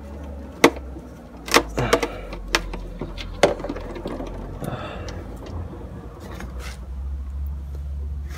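A few sharp clicks and knocks as the oil drain plug is worked loose. Then warm engine oil from the Kymco MXU 450i runs out in a steady stream into a plastic catch container, the pouring sound growing fuller near the end.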